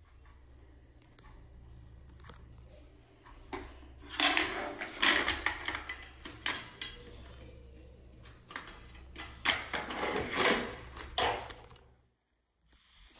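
Ornate metal scrollwork clock being handled on a countertop: scraping and clattering in two spells, one about four seconds in and one about ten seconds in, over a steady low hum that cuts off near the end.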